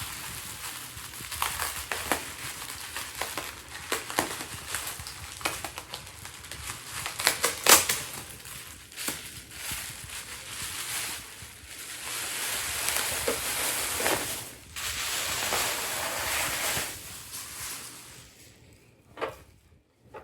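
Packaging wrap being pulled and crumpled by hand while a packed item is unwrapped: a continuous irregular crinkling and crackling, dotted with sharp snaps, one louder snap about eight seconds in. It dies down near the end.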